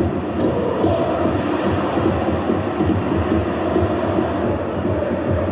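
Loud, steady low rumble of noise.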